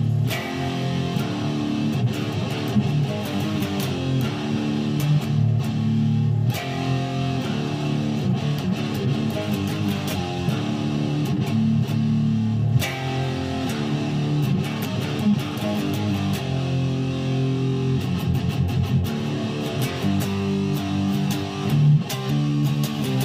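Guitar music: strummed chords, changing every second or two.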